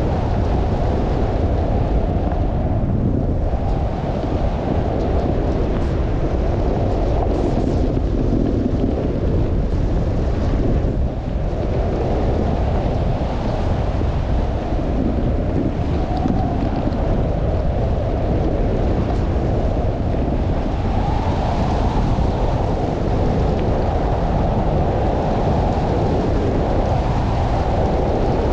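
Loud, steady wind buffeting the microphone during a fast descent through a snowstorm, a continuous low rumble with no breaks.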